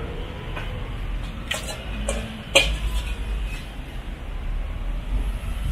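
Roadside street ambience: a steady low rumble with a few sharp clinks or knocks, the loudest about two and a half seconds in.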